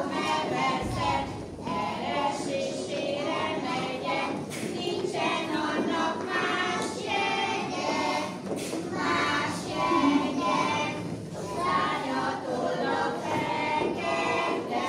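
A group of voices, children's among them, singing a song together.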